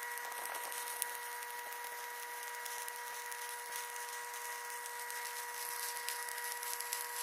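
Stick-welding arc on a 1/8-inch electrode at about 125 amps, an even crackling hiss over a steady tone, as a bead is run uphill on pipe. The arc is burning well at this heat.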